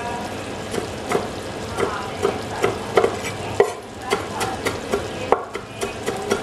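Kitchen knife chopping fresh coriander on a wooden cutting board, in quick knocks about three a second, over a steady sizzle from the pot of kabab gravy simmering on the stove.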